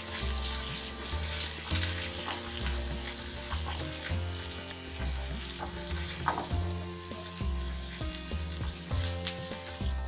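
Chopped onion sizzling in hot mustard oil in an iron kadhai, stirred continuously with a wooden spatula on low heat. The spatula scrapes against the pan now and then.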